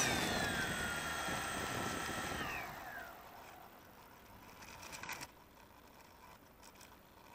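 Multirotor drone's electric motors spinning down after the throttle is cut: a whine of several tones holds briefly, then slides down in pitch and fades out about three seconds in. A short click comes about five seconds in.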